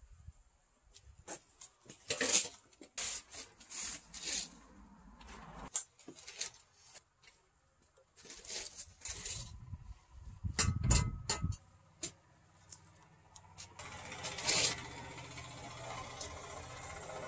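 Close handling sounds of marking out a timber beam: a padded jacket rustling, with scattered scrapes and taps of a square and pencil on the wood. A low thump comes about two thirds of the way through.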